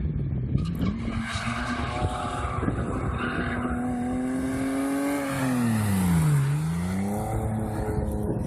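BMW 3 Series drifting: the engine is held at high revs with tyre squeal, and about six seconds in the revs drop sharply and climb straight back up as the car slides past, loudest at that moment.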